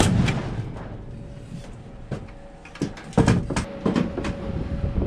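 A pneumatic framing nail gun fires once at the start, a sharp crack with a short ring. About three seconds in comes a cluster of heavy thuds of boots stepping onto and across a raised wooden floor.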